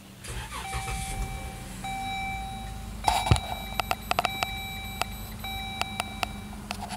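2011 Dodge Journey's instrument-cluster warning chime: a steady tone sounding in stretches of one to two seconds with short breaks, over the engine starting and idling. A run of sharp clicks comes about three to four seconds in, with a few more near the end.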